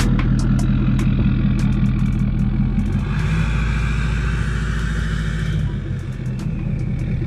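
Ford 6.7 Power Stroke V8 turbo-diesel engine of a pickup driving off under throttle. From about three seconds in, a whistle from its aftermarket KC Turbos 'Whistler' turbocharger swells as it spools, then fades near six seconds.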